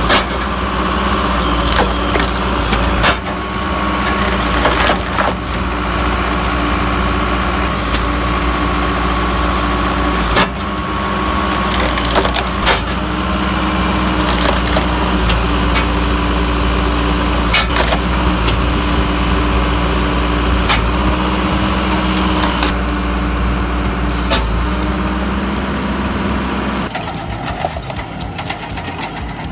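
Hydraulic firewood processor running, its engine and hydraulics droning steadily, with about six sharp cracks of logs being cut and split. The steady drone drops away abruptly near the end.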